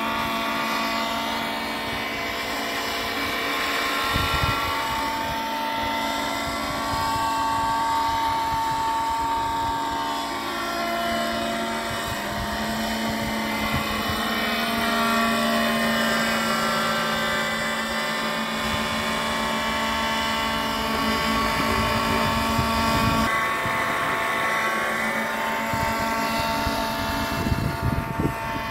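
RC model helicopter flying aerobatics, its engine and rotors running with a high steady note that slides up and down in pitch several times as it manoeuvres.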